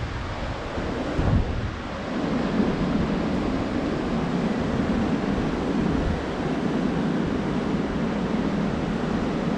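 Surf breaking steadily in a cove, mixed with wind buffeting the microphone in low rumbles, with a stronger gust about a second in.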